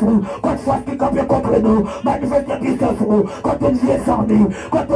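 A voice loudly chanting fast, rhythmic syllables without a break.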